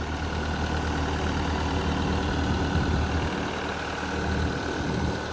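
Diesel engine of a 2016 Case TV380 compact track loader running steadily at idle, a low even drone.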